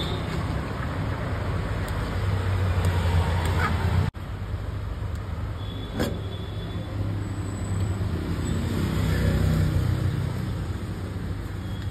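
Steady street traffic noise, a low rumble of passing vehicles, which drops out for an instant about four seconds in.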